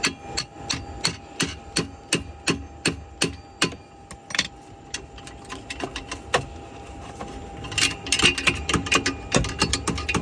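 Hammer blows on a catalytic converter to knock out its core. Steady strikes come about three a second, thin out midway, then pick up into a faster, busier run near the end.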